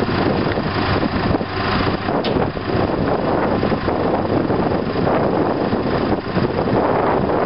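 Engine of a Demag H185S hydraulic front shovel running steadily, a dense, even machine noise with no let-up.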